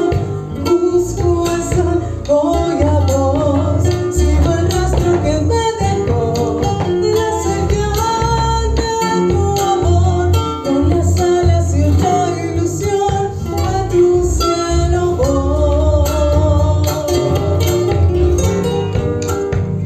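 A woman singing an Argentine folk song over plucked guitar accompaniment with a steady beat.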